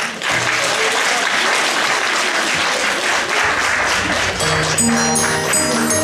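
Audience applauding. About four and a half seconds in, music starts under the applause, with held low notes and high bell-like tones.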